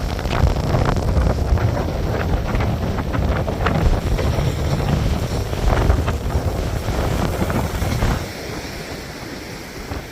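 Strong onshore wind buffeting the microphone over heavy, storm-driven ocean surf. The gusts ease suddenly about eight seconds in, leaving the steadier rush of breaking waves.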